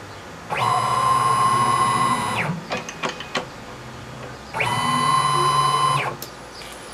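CNC mini lathe's axis drive motors whining through two rapid moves of the tool slide, each a steady pitched whine about two seconds long that rises quickly in pitch at the start and drops at the end. A few short clicks come between the two moves.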